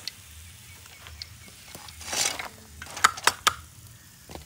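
Fried fish pieces tipped from a metal slotted ladle onto a banana leaf: a short rustling slide about two seconds in, then a few sharp taps and clicks.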